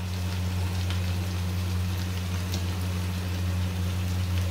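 Potatoes and aubergine pieces frying in oil in a kadhai, a light crackling sizzle over a steady low hum.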